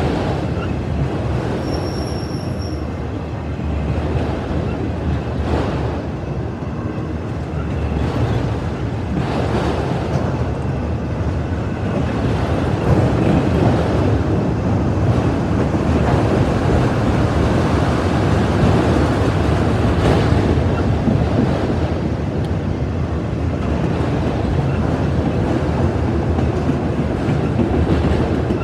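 Autorack freight cars rolling past on the rails: a steady rumble and rattle of steel wheels on track, with faint knocks here and there.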